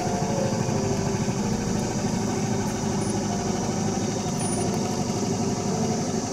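The small engine of a self-driving sightseeing cart running steadily as the cart travels along a paved path, a continuous low, rapidly pulsing hum.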